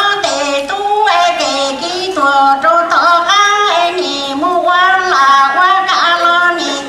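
A woman singing solo into a microphone, amplified through the hall's sound system, holding long notes that step and slide in pitch.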